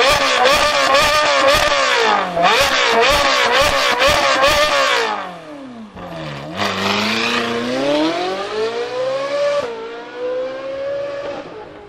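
Ferrari 458 Speciale's V8 revved in a series of quick blips, the note jumping up and down. The car then pulls away with a long rising note, a short dip about ten seconds in, and the sound fading toward the end.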